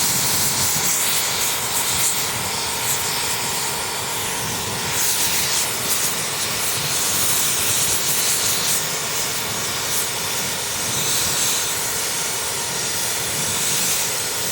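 Steady jet-like roar and hiss of air and flame rushing through a two-stroke motorcycle's aluminium silencer as the oil and carbon clogging it burn off from the inside, sounding like a fighter jet.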